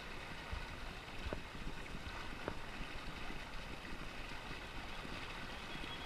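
Steady rush of fast river current around a small pontoon boat, with wind on the microphone and two faint taps about a second and two and a half seconds in.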